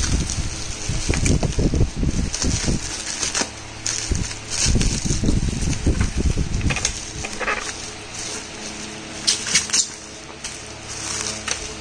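Bubble wrap and plastic packing crinkling and rustling as a wrapped mixer-grinder jar is pulled out of a cardboard box and handled. There are irregular bumps of handling throughout, with sharper crackles near the end.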